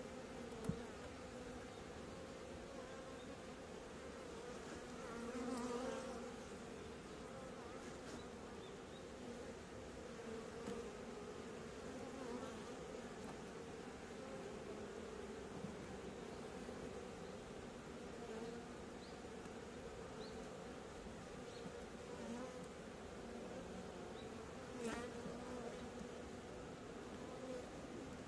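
Honeybees buzzing steadily around their hive, swelling louder for a moment about five seconds in. A single short click just after the start.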